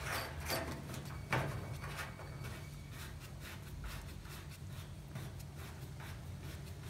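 A round metal multi-pin cable plug being pushed into and twisted onto its socket on a control cabinet, with a few sharp clicks in the first second and a half and then softer rubbing of the plastic corrugated conduit, over a steady low hum.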